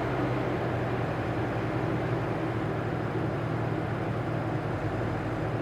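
Telehandler (zoom boom) engine running steadily with a low, even hum.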